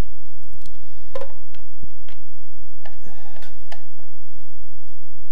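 Scattered light clicks and taps as a small circuit board is handled in its plastic controller housing during disassembly, over a low steady hum.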